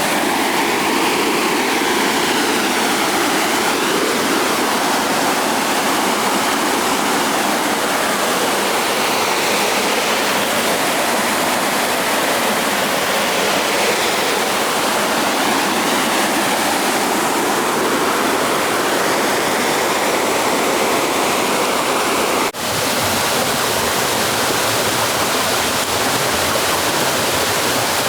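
Waterfall with a modest flow of water, a steady rushing splash of falling water that breaks off for a moment about three-quarters of the way through.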